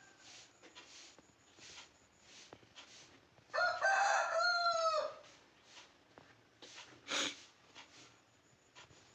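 One loud crow like a rooster's cock-a-doodle-doo, about a second and a half long and ending in a falling tail, a few seconds in. About seven seconds in comes one short, sharp, high squeak.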